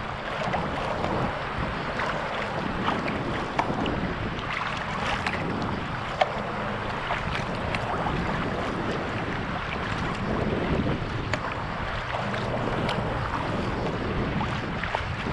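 Sea kayak under way: water splashing and dripping from the paddle and lapping at the hull, with small scattered splashes over a steady rush of wind on the microphone.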